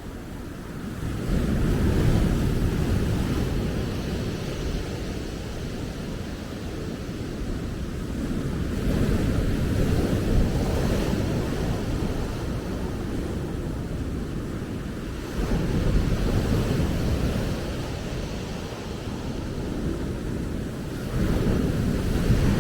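Ocean waves breaking and washing up a beach, swelling and easing about every six seconds, with a low rumble of wind on the microphone.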